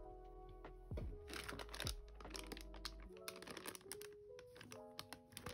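Lo-fi background music with melodic note chords, its bass line dropping out about three seconds in. Light clicks and crinkles of small plastic figure pieces being handled sound over it.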